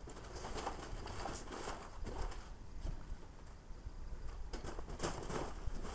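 Sped-up demolition noise: quick, irregular clattering and scraping bursts of debris as the brick depot is torn down.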